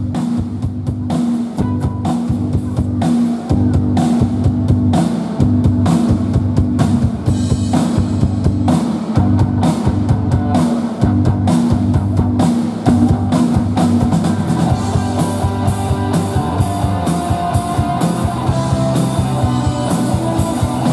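Pop-rock band playing live: electric guitars, bass, keyboard and drum kit in the instrumental intro, before the vocals come in.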